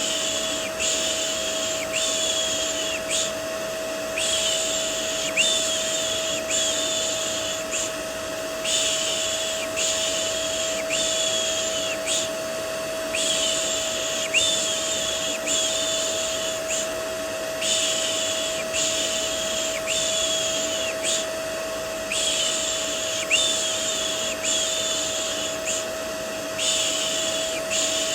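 Repeated human 'shh' shushing, about one shush a second in runs of four or five with short pauses between runs, over the steady hum and rush of a running vacuum cleaner, looped as a soothing sound for putting a baby to sleep.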